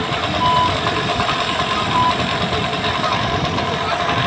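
An engine idling steadily aboard a fishing boat, a constant low drone. Two brief high tones sound over it in the first two seconds.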